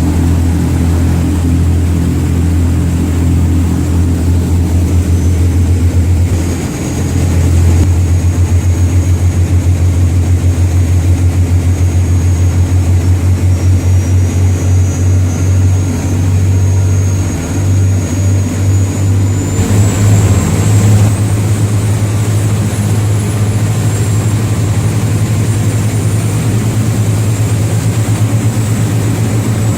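Sport-fishing boat's engines running steadily under way, a loud low drone, with a faint high whine slowly rising in pitch through the middle.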